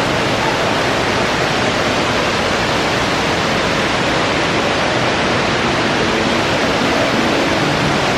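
Steady rush and splash of water from the fountain jets and small rock cascades of an indoor garden pond.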